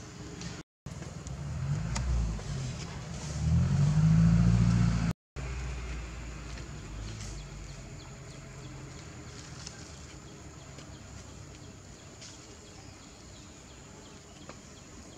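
A low rumble that swells to its loudest about four seconds in, then fades to a quieter steady background; the sound cuts out briefly twice.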